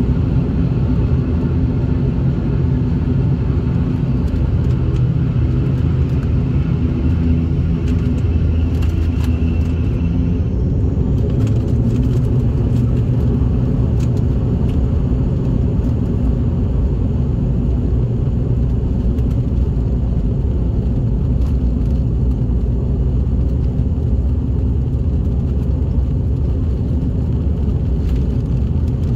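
Airliner engines and cabin noise heard from inside the cabin while taxiing: a steady low drone, with a faint high whine that fades out about ten seconds in.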